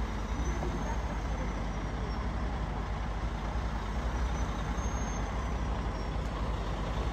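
A heavy diesel vehicle's engine running steadily with a deep, pulsing rumble.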